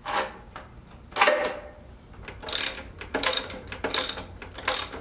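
A ratchet mechanism worked in repeated strokes as the moped is raised back up. After two early strokes it settles into a steady rhythm of about one stroke every three quarters of a second.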